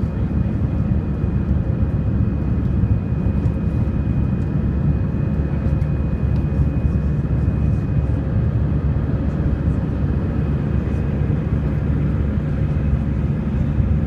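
Airbus A319 jet engines running in flight after takeoff, heard from inside the passenger cabin: a steady deep rumble with a faint, even high whine over it.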